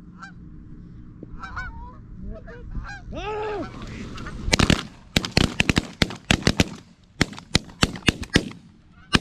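Geese honking as a flock comes in low over decoys, then a rapid volley of shotgun shots from several hunters about halfway through, more than a dozen loud shots in about four seconds.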